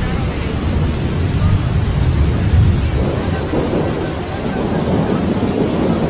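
Thunder rumbling in a heavy rainstorm, swelling to its loudest a little before halfway and then easing, over the steady hiss of rain.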